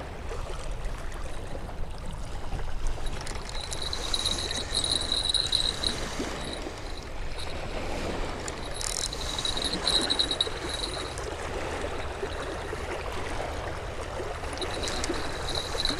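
Lake water washing against the shore, a steady rushing noise with a low rumble. A high whir comes in three short bouts of about two seconds each.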